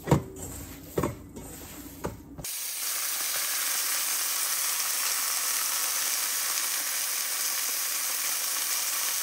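Hands kneading seasoned ground beef in a glass bowl, with three sharp smacks about a second apart. About two and a half seconds in, two ground-beef patties in a cast-iron skillet take over, sizzling steadily.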